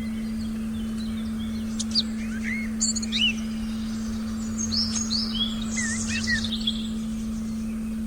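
Forest ambience with several birds chirping in short rising and falling calls, bunched from about two to seven seconds in. Under them runs a steady, unbroken low meditation tone.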